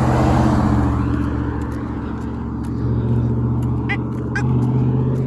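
Road traffic: a car passing close by in the first second over a steady low engine hum, with two brief high chirps about four seconds in.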